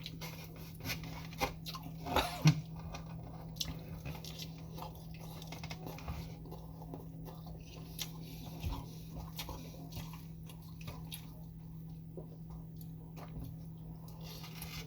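Close-up chewing and mouth sounds of someone eating Chinese food, with scattered small clicks and a louder burst about two seconds in. A steady low hum runs underneath.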